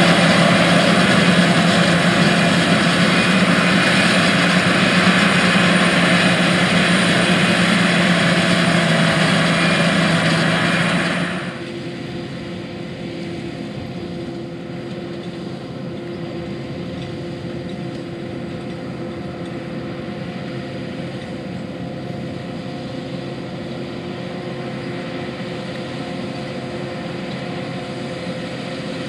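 John Deere 8600 self-propelled forage harvester chopping corn and blowing silage through its spout: a loud, steady machine sound with a strong low hum. About eleven seconds in it gives way abruptly to the quieter, steady engine of a John Deere 8295R tractor pulling a 1795 row-crop planter.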